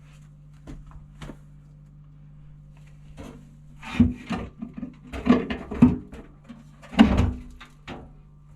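Irregular knocks and clatters of hard objects being handled, a few scattered ones and then a busier cluster in the second half, over a steady low hum.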